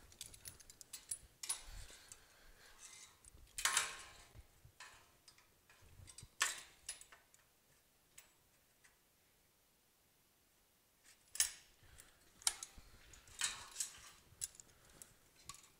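Scattered metallic clicks and clanks as square steel tubing is set onto a steel frame and locking C-clamps are worked, with a quiet pause about halfway through.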